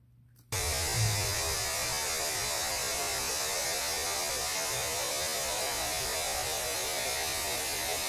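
Electrical hum with a hiss of static that switches on abruptly about half a second in and then holds steady, as the glowing vial's apparatus is energised.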